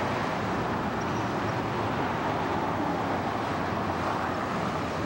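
Steady road and engine noise of a car driving, heard from inside the moving car.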